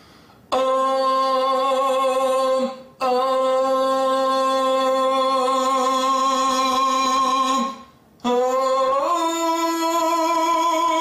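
A man's voice singing three long, steady notes on a rounded 'oo' vowel shaded toward 'O', the third sliding up in pitch partway through and holding. It is a vowel-modification exercise: singing the 'oo' with an 'O' shape in the throat to keep it open.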